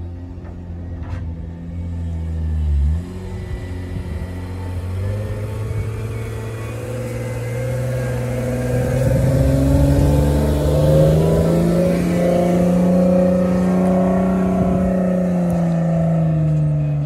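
An off-road Jeep's engine runs steadily, then shortly after a sudden change about three seconds in it is revved up under load, its pitch climbing slowly, holding high and dropping back near the end.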